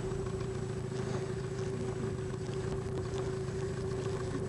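Boat engine running steadily at low speed, a constant even hum with no change in pitch.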